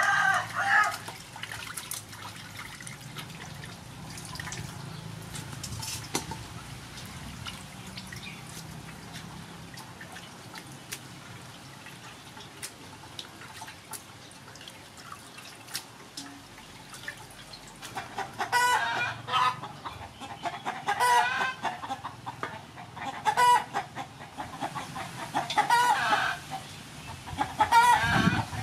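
Chickens clucking in a run of short repeated calls through the last third, after a quieter stretch of water splashing and trickling as fish pieces are washed by hand in a metal basin.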